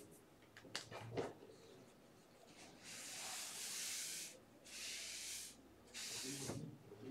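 A cloth wiped across a tabletop in three strokes, each a rubbing hiss, the first the longest. A few light taps come about a second in.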